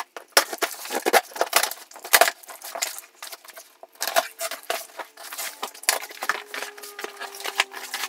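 Cardboard shipping box being torn open by hand: packing tape and cardboard ripping and flaps pulled back, a rapid, irregular run of scrapes and crackles.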